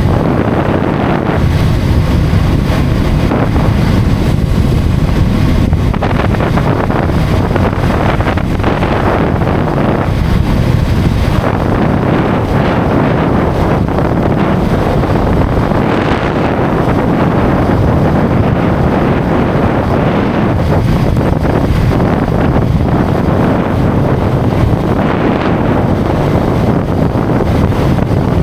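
Wind buffeting the camera microphone on a motorcycle at highway speed: a loud, steady rush, heaviest in the low end, with road noise mixed in.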